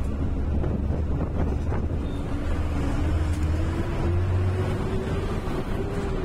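Heavy engine and road rumble inside a moving state-transport bus, with the engine's hum slowly rising in pitch as the bus gathers speed.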